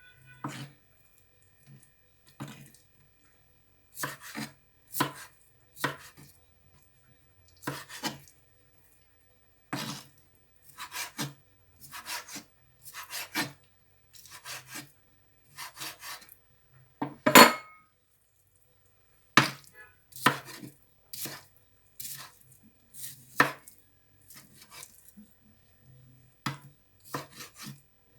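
Kitchen knife chopping fish fillet into small pieces on a cutting board: short, irregular knocks, about one to two a second, with one louder knock about two-thirds of the way through.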